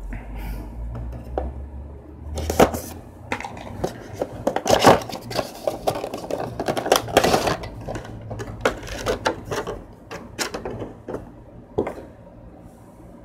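Cardboard window box and its clear plastic insert being handled and opened: a run of sharp crinkles, cracks and taps, busiest in the middle, as a toy figure is pulled free. It goes quiet about a second before the end.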